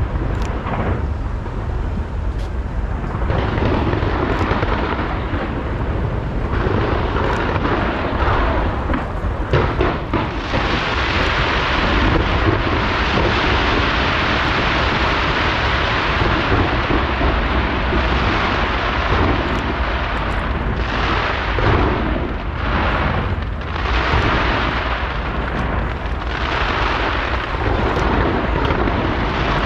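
Dense fireworks barrage launched from the Taipei 101 skyscraper: a continuous rumble of many overlapping bursts, with a thick crackling hiss filling in from about ten seconds in.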